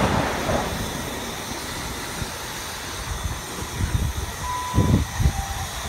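GWR Class 166 diesel multiple unit pulling out along the platform, its running rumble fading away. A few low thuds and a short single beep come about four and a half seconds in.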